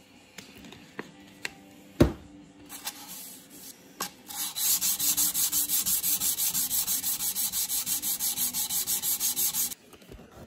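A flat steel can opener being wet-sanded by hand, rubbed back and forth on wet sandpaper in quick, even strokes, several a second, from about four seconds in until shortly before the end. It is being polished to give a square edge that will strike a ferro rod. Before the sanding there are a few light clicks and one sharp knock about two seconds in.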